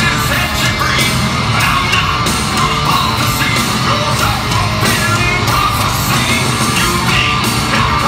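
Rock band playing live at full volume: distorted electric guitars and drums under a lead vocal, in a loud amplified arena mix.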